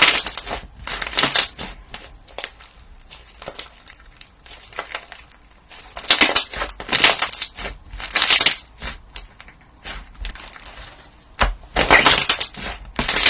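Crunchy material being crushed by hand: several bursts of crisp crunching and crackling with quieter crackle between.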